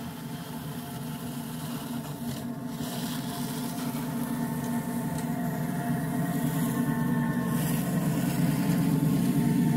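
Ride-on 1½-inch-scale New York Central Geep locomotive running steadily under load as it pushes a snowplow along snow-covered track, its motor hum growing louder as it approaches.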